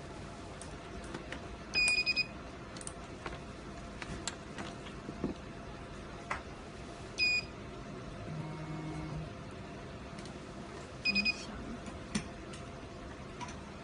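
Electronic beeper sounding in short groups: a quick run of beeps about two seconds in, one longer beep a few seconds later, and another quick run near the end. A low motor hum of about a second comes between the second and third groups. Light clicks are scattered throughout.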